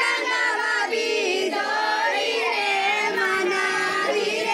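A group of women singing a wedding folk song together in one melody.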